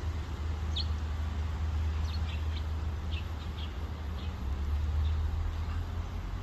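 Scattered short, high bird chirps, about eight of them, over a steady low rumble of traffic.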